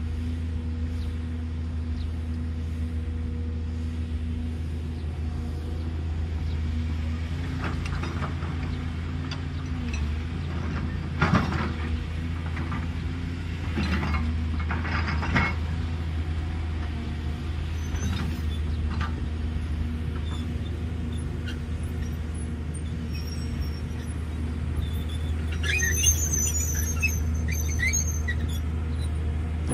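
JCB tracked excavator's diesel engine running steadily while it loads soil into a dump truck. There are clattering knocks about a third and halfway through as the load drops into the steel truck bed, and high-pitched squeaking near the end as the machine swings.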